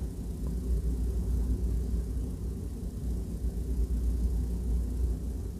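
Steady low background rumble with no clear events.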